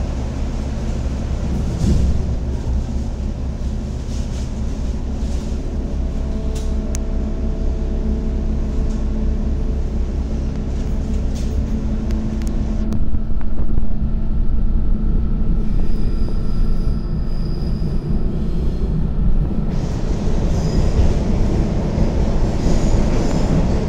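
Metro train running, heard from on board: a steady low rumble of wheels on rail with several steady humming tones over it. The sound grows louder and changes about halfway through.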